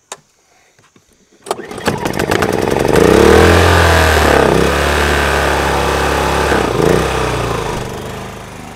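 Ryobi digital inverter generator starting: its small engine catches about a second and a half in, runs up loud with its pitch wavering, then settles to a quieter, steadier speed near the end.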